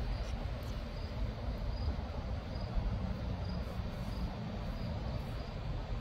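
Faint, regular high chirps of an insect, likely a cricket, repeating about every half second to second over a low, steady outdoor rumble.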